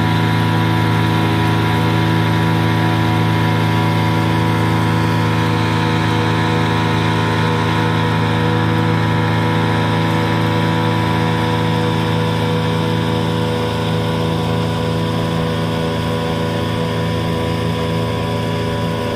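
Twin outboard motors, a 15 hp and a 25 hp, running together at a steady cruising speed over the rush of water from the boat's wake.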